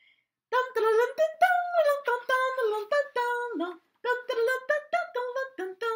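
A woman singing a short wordless tune with held notes, in two phrases with a brief break about four seconds in.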